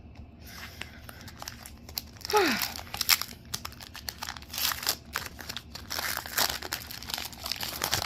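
Foil booster-pack wrapper crinkling and tearing in irregular bursts as a Pokémon card pack is opened and handled, with a brief falling tone about two and a half seconds in.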